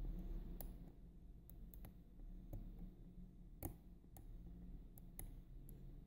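About ten faint, irregularly spaced clicks from a lock pick and tension wrench working the pin stacks of an Assa five-pin oval cylinder lock, with one louder click a little past halfway.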